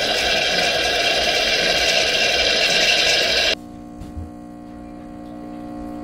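Mr. Coffee Café Barista espresso machine brewing: loud steady hissing as steam and hot water come from the brew head with the 15-bar pump running. About three and a half seconds in, the hiss cuts off suddenly, leaving a quieter steady pump hum as the espresso starts to pour.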